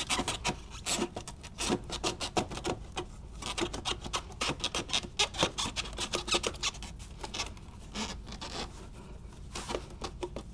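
Rubber air-intake snorkel hose being twisted and forced into place by gloved hands. It makes irregular rubbing and scraping of rubber against plastic engine-bay parts.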